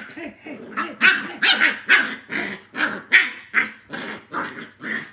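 Scottish Terrier puppy barking and growling in play while mouthing a hand, a rapid run of short yapping barks about two a second.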